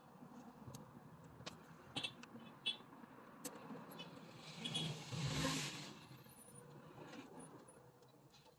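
Faint bench-work handling noise: small sharp clicks and taps of tools and small parts, with a brief rush of noise that swells and fades about five seconds in.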